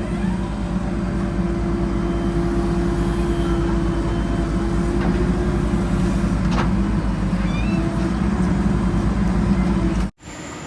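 Heavy diesel engine running steadily at constant speed, with an even low throb and a steady hum; the sound cuts off abruptly near the end.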